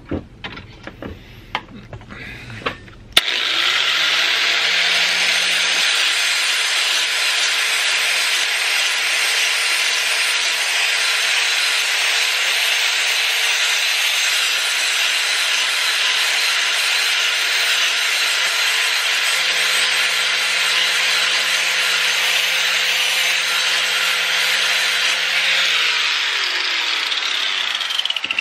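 A few metal clanks at the bench vise as the lawn mower blade is clamped, then a handheld angle grinder starts about three seconds in and spins up. It grinds steadily along the steel blade's edge for over twenty seconds, sharpening it, then is switched off and winds down near the end.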